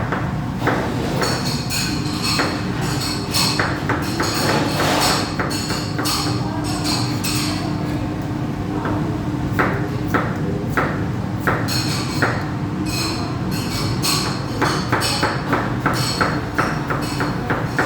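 Kitchen knife striking a cutting board in quick runs of cuts as potatoes are sliced into french-fry sticks, over a steady low hum.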